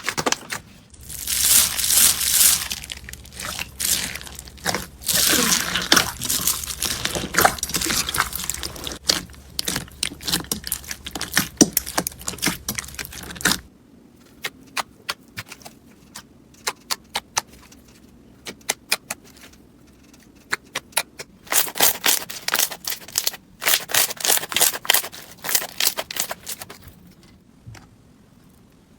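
Slime being handled, squeezed and poked, making dense crackling and popping sounds. Around halfway the sound thins to scattered single clicks for several seconds, then the dense crackling returns near the end.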